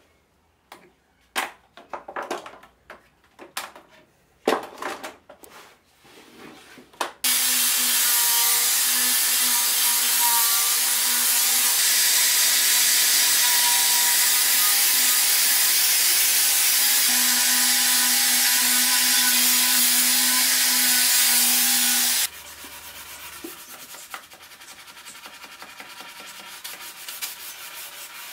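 Clicks and knocks as the quick-release bar clamps come off the wooden tray for the first seven seconds. Then an electric sander with a hook-and-loop sanding disc runs steadily against the wood for about fifteen seconds and stops suddenly, followed by the quieter rubbing of sandpaper worked by hand over the wood.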